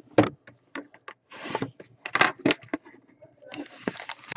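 Cellophane shrink wrap on a sealed trading card box crinkling and tearing as it is pulled off, with scratchy scrapes of the box being handled; a denser, steadier rustle near the end.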